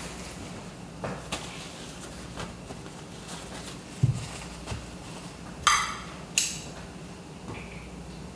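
Kitchen handling sounds over beef frying in a pan: a dull thump as a ceramic bowl is set down on the counter about four seconds in, then two sharp, ringing metallic clinks less than a second apart as metal kitchen tongs are picked up off a ceramic plate.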